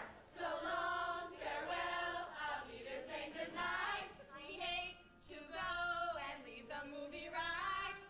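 A stage cast singing together in chorus, in several phrases with long held notes that waver.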